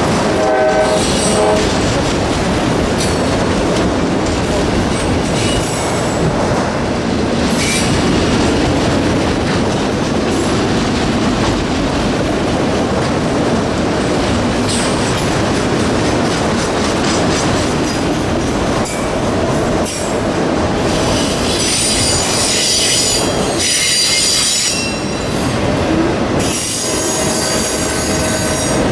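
Freight train cars rolling past close by: a steady loud rumble and clatter of wheels on rail, with high-pitched wheel squeal about two-thirds of the way through and again near the end.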